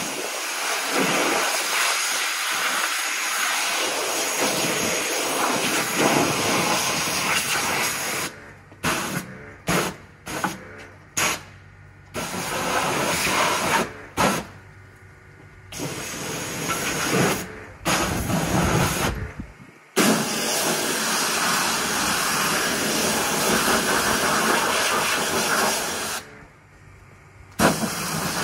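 High-pressure jet-wash lance spraying water at a Land Rover's wheels and wheel wells: a loud steady hiss that starts abruptly. About a third of the way in it cuts in and out in short bursts as the trigger is pulsed, then runs in longer stretches, with a pause near the end.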